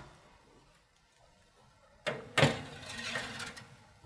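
A metal springform cake pan set onto an oven's wire rack about halfway through: a sharp clunk, then about a second of softer scraping as it is pushed into place.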